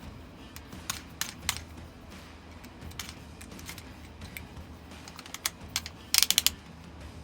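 Scattered clicks and taps of small tools and parts being handled, with a quick run of about five clicks a little after six seconds.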